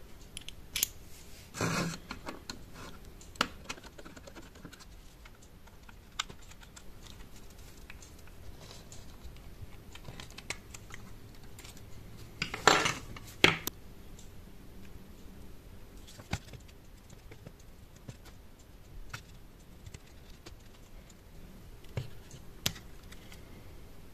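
Scattered light clicks and clatters of the small plastic and metal parts of a Zoom H3-VR microphone being handled and pried apart by hand and with tweezers, with louder rattles about two seconds in and about halfway through.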